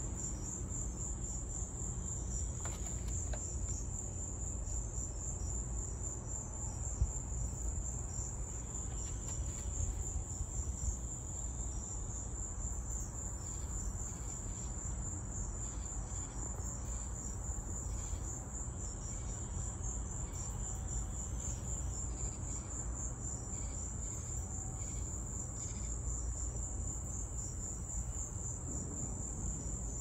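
Crickets chirping in a continuous high, evenly pulsing trill, over a steady low rumble.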